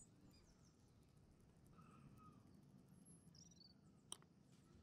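Near silence, with a few faint chirps and one sharp click about four seconds in.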